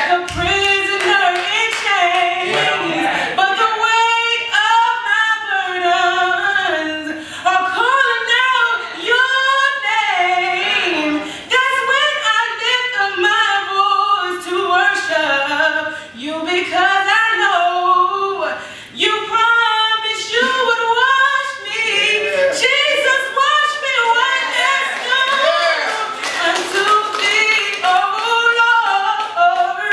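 A woman singing a gospel song solo into a microphone, her voice gliding up and down in phrases through a church sound system.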